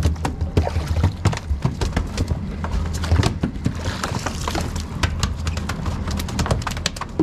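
Live baitfish being scooped from a boat's livewell with a dip net: water splashing and sloshing, loudest about four seconds in, among many sharp knocks and taps, over a steady low hum.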